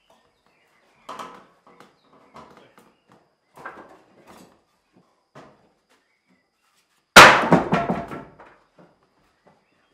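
Wooden planks knocking lightly a few times, then a stack of boards dropped onto a wooden plank floor with a loud clatter about seven seconds in.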